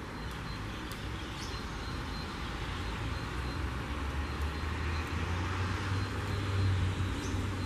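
Street traffic on a wet road: a steady hiss of tyres on the wet asphalt over a low engine rumble, which grows a little louder in the second half.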